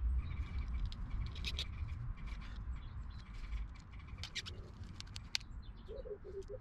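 Scattered light clicks and taps of a screwdriver and a blue plastic 16 A hookup plug being handled while the cable's wires are fitted into its terminals, over a low rumble.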